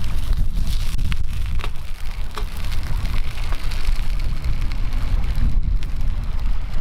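Wood fire crackling and hissing, with scattered sharp pops, over a strong low rumble.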